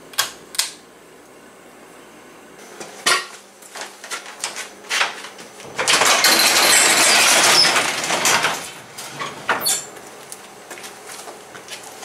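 A couple of clicks from a light fixture's pull-chain switch. Scattered knocks follow, then a metal sectional garage door rattles loudly as it rolls up along its tracks for two or three seconds.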